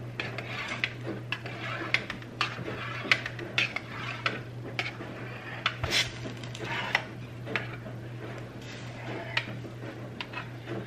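Knife cutting set gelatin into small cubes in a metal baking pan, the blade clicking against the pan's bottom about once or twice a second at an uneven pace.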